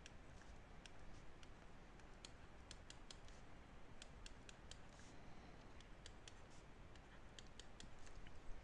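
Faint, irregular clicks of a stylus tapping on a tablet screen while writing short marks and labels.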